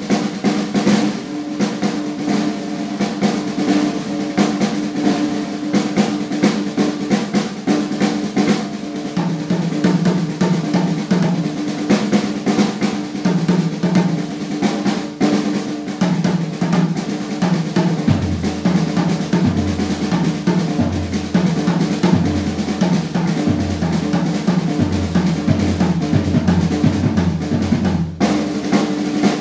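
Acoustic drum kit played solo: fast snare and tom patterns with cymbals and bass drum. About two-thirds of the way through, deeper, evenly pulsing drum strokes join in.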